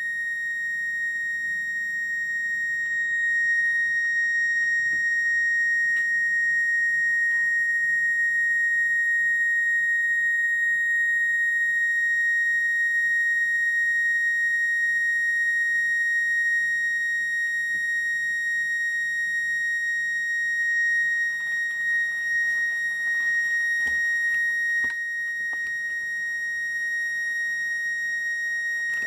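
Steady high-pitched whine from a Bedini self-oscillating motor circuit and coil, singing at its switching frequency of about 1.9 kHz. A faint low hum runs beneath it, and a few light clicks and knocks come in the last third.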